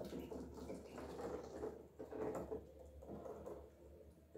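Ducklings pecking at lettuce leaves and scrabbling about on the bottom of a plastic tub: soft scratchy clicks in small clusters about once a second.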